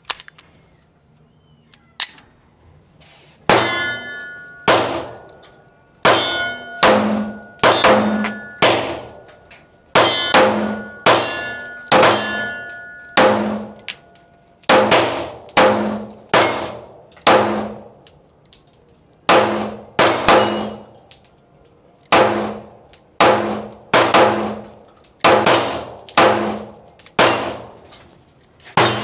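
Sig Sauer P320 pistol being fired in a steady string of about two dozen shots, roughly one a second, each shot ringing out, with short pauses near the middle.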